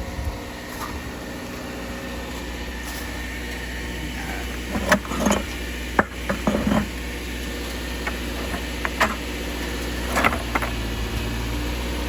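Vehicle engine idling steadily, with a scattering of short knocks and clunks from about halfway through.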